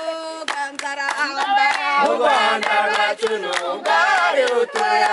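A group of men, women and children singing a song together unaccompanied, with steady hand-clapping in time. The singing grows louder about two seconds in.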